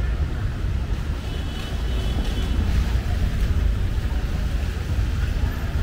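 Wind buffeting the microphone: a steady, loud low rumble with no distinct event.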